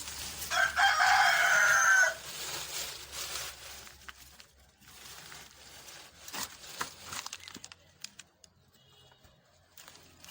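A rooster crows once, about half a second in, lasting about a second and a half, followed by faint scattered clicks.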